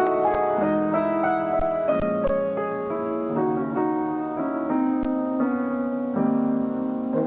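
Jazz piano playing a ballad alone: sustained chords changing every second or so, with a melody on top.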